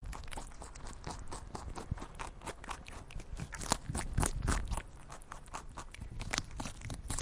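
Rabbit eating, a quick irregular run of crunching and munching as it chews its food.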